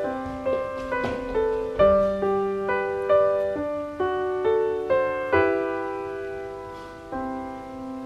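Background piano music: a gentle tune of struck notes and chords, each note fading after it is played, with one chord left ringing a little longer past the middle.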